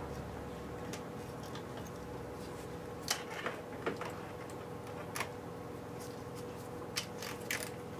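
Quiet workshop with a steady hum and the low rumble of a passing car dying away in the first second. After that come a few scattered light clicks and taps from hand-tool work on a moped.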